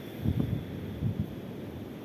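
Wind buffeting the microphone over a steady outdoor hiss, with two low gusts: one about a third of a second in, another about a second in.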